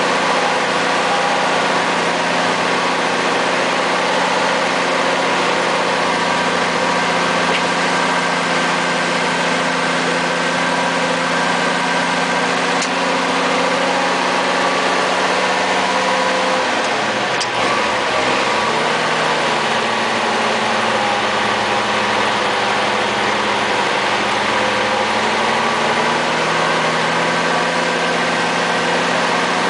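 M109A3 2½-ton army truck's multifuel engine running at low speed, heard from inside the cab. The engine note falls and wavers a little past halfway, then steadies again.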